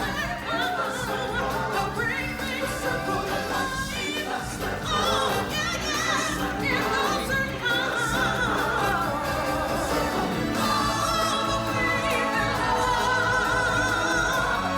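Singers performing with musical accompaniment, several voices at once, holding long notes with a wavering vibrato.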